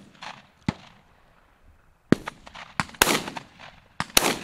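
Several shots from Beretta Silver Pigeon over-and-under shotguns fired at flying pheasants, sharp cracks of differing loudness from more than one station, the loudest about three seconds and just past four seconds in, each trailing a short echo.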